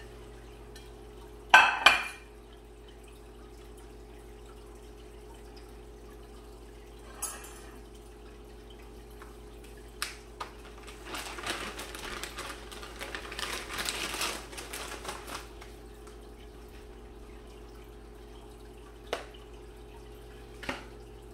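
Dishes being handled on a kitchen counter: two sharp clatters about a second and a half in, then scattered single knocks and several seconds of rustling and handling noise in the middle, over a steady low hum.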